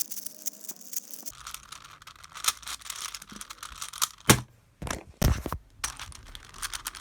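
Plastic Rubik's Cube being twisted by hand: a stiff, scratchy run of small clicks and rasps as the layers turn, with a few louder clacks a little past the middle.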